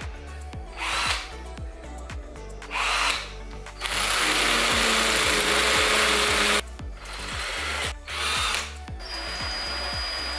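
Makita cordless drill running in several short bursts, with one longer run of about two and a half seconds in the middle, drilling into the wall.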